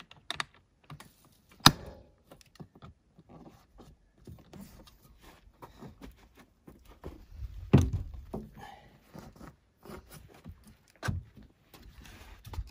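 Handling noise from a rooftop tent being folded shut: light rustling and scattered clicks as the fabric is tucked in and the cover pressed down, with a sharp click about two seconds in, a heavy thump about eight seconds in (the loudest sound), and another knock about eleven seconds in.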